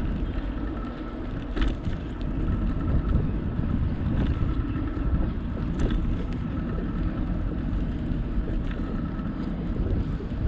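Wind rumbling on the microphone of a bicycle-mounted camera while riding, with the tyres rolling over pavement. A faint steady whine runs underneath, and a few light knocks come through at irregular moments.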